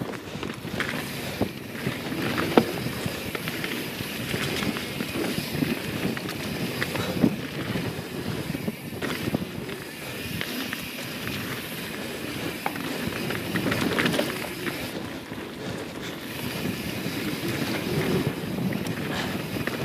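YT Jeffsy 27 mountain bike's tyres rolling fast over a packed dirt trail strewn with leaves, with wind rushing over the microphone. A few sharp knocks and rattles come from the bike over bumps.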